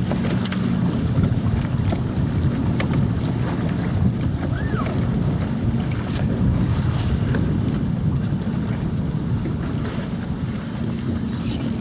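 Wind buffeting the microphone over choppy lake water lapping at a boat, with a few light clicks scattered through.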